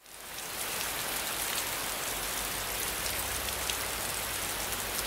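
Steady rain falling: an even hiss flecked with scattered drop ticks, fading in over the first half second.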